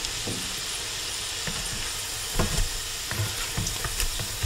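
Salmon patties frying in oil in a cast-iron skillet, a steady sizzling hiss, with a few light knocks from a spatula working in the pan in the second half.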